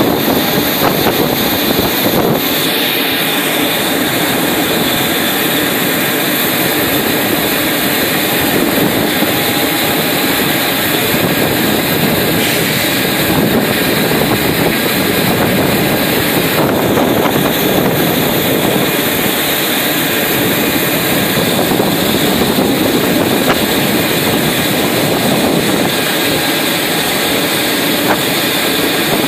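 Steady, loud roar of airport apron ambience: strong gusty wind on the microphone mixed with jet aircraft noise.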